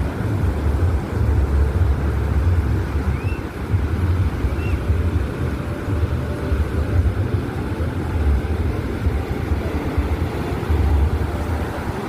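Wind rumbling unevenly on the microphone over a steady outdoor hum, with two faint short high chirps a few seconds in.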